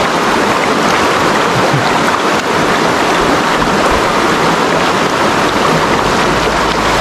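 Steady rush of a shallow river flowing, with water splashed by a person sitting in it.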